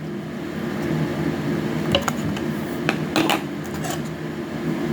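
A few light, sharp clicks and taps from food and utensils being handled at close range, over a steady low background hum.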